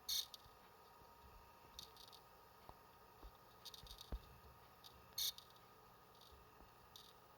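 Hard disk drive making an abnormal noise: faint, short, high-pitched clicks at irregular intervals of one to two seconds over a faint steady hum. The two loudest clicks come at the start and about five seconds in.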